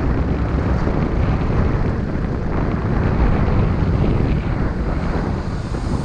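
Steady low wind rumble buffeting the microphone of a camera carried on a moving electric unicycle.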